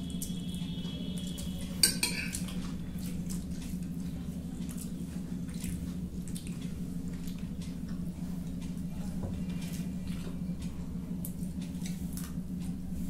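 Spoons and forks clicking and scraping on glass plates as two people eat noodles, with one sharper, louder clink about two seconds in. A steady low hum runs underneath.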